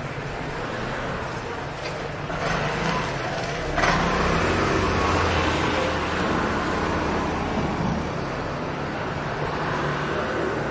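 A small hatchback car drives slowly past close by on a cobbled street, engine and tyres running. It gets louder suddenly about four seconds in and stays loudest for a few seconds, over a steady street background.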